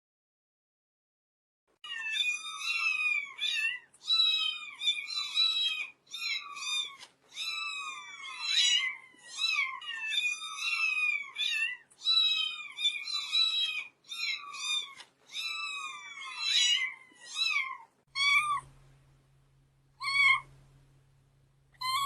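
Kitten mewing: a rapid run of short, high mews that arch and fall in pitch, two or three a second, starting about two seconds in, then thinning to a few spaced mews near the end over a faint low hum.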